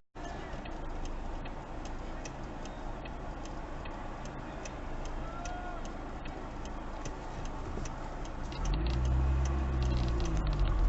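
A vehicle's turn-signal indicator clicking at an even pace over steady engine and road noise. Near the end the engine hum gets louder.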